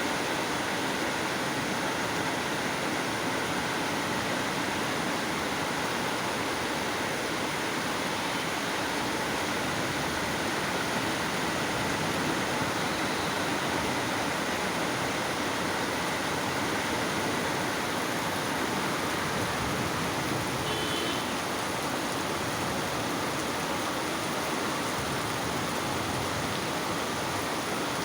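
Heavy rain falling steadily: a dense, even hiss. A short high beep sounds once about three-quarters of the way through.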